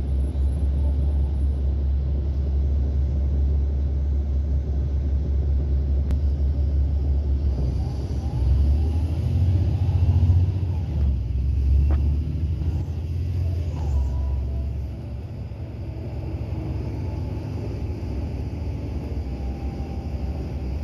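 Cabin ride noise of a 2008 NABI 40-SFW transit bus under way, its Caterpillar C9 inline-six diesel giving a low, steady drone. The drone swells about eight seconds in, then eases off and runs quieter from about fifteen seconds in.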